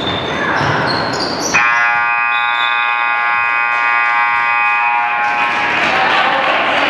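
Gym scoreboard buzzer sounding one steady, loud tone for nearly four seconds, starting about a second and a half in, over crowd noise: the horn that ends play, here most likely the final buzzer of the game.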